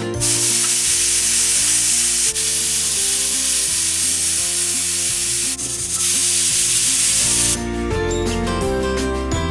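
Pressure cooker whistling: a loud steady hiss of steam jetting out from under the weight valve. It dips briefly about five and a half seconds in and stops shortly before the end. Background music plays underneath.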